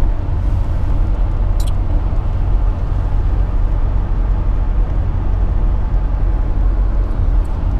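Steady road and engine noise inside a moving car's cabin, driving along a highway, heaviest in the low rumble, with a single short click about a second and a half in.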